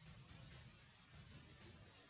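Near silence: faint steady outdoor background hiss with a low rumble.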